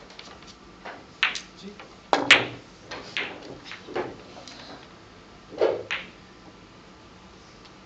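Billiard balls clicking against each other and the table cushions during a keglebillard shot: a string of sharp knocks over about five seconds, the loudest about two seconds in and again near six seconds.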